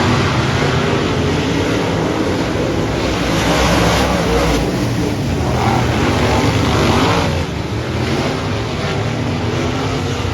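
Dirt-track race cars running on the oval, several engines at once, their pitch rising and falling as they go by over a steady rush of noise.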